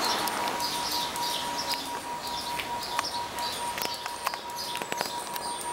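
Short chirps repeating every fraction of a second, like birds, over a steady high tone, with a few sharp clicks.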